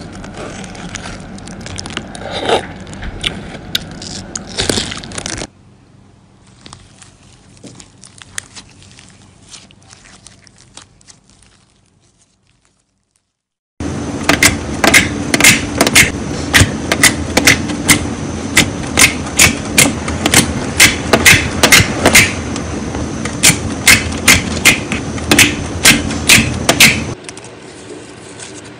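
Hands squishing and poking slime, with sticky crackling and clicking. After a brief silence about halfway through comes a louder run of sharp clicking pops, several a second, as fingers press into a glossy slime.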